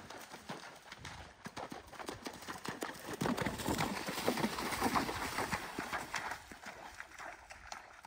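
Horse cantering through shallow creek water, its hooves striking and splashing with each stride. The splashing grows loudest as the horse passes close, about three to six seconds in, then fades near the end.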